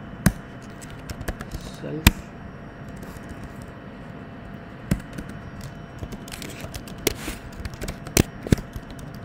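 Computer keyboard keystrokes: a few sharp, irregular clicks spread over the stretch, with a pair close together near the end, as code is typed in an editor.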